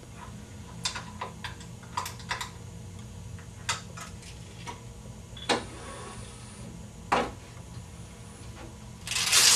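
Scattered light clicks and taps as the rope and head harness of a cervical traction attachment are handled and released. Two slightly louder knocks fall in the middle, and a short rustling hiss comes near the end.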